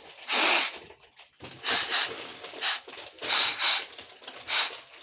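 A puppy sniffing and snuffling right at the microphone: a run of short, noisy sniffs in quick clusters.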